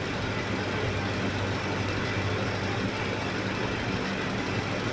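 A steady low machine hum, like an engine or motor running at an even idle.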